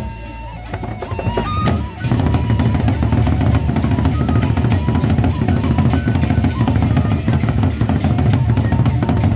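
Gendang beleq ensemble playing: large Sasak double-headed barrel drums beaten with sticks in a fast, dense rhythm, with hand cymbals clashing over them. It starts sparser and quieter, then comes in at full strength about two seconds in.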